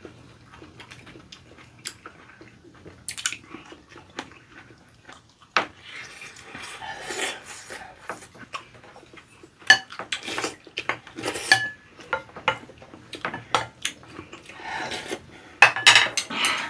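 Spoon and chopsticks tapping and scraping against ceramic bowls while rice is scooped up, in irregular sharp clicks that come thickest about ten seconds in and again near the end.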